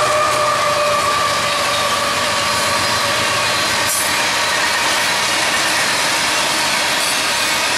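Freight train cars rolling past close by at speed: a steady roar of steel wheels on the rails. A tone fades out over the first second or two.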